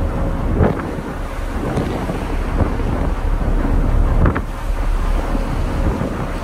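Wind buffeting the microphone on the open deck of a moving ferry, over the rush of water along the hull. It surges twice, about half a second in and again just past four seconds.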